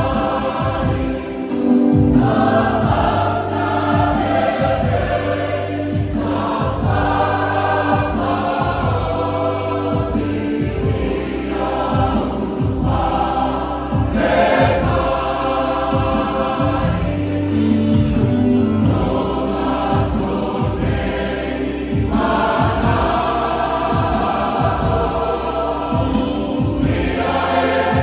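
A choir singing a hymn in phrases of a few seconds, over an accompaniment with a steady beat and a sustained bass line.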